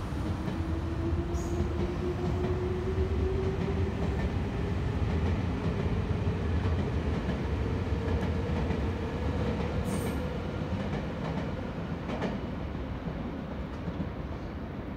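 Electric passenger trains running on the elevated line: a steady low rumble with a whine that rises slowly in pitch over the first eight seconds. Brief high wheel squeals come about ten and twelve seconds in.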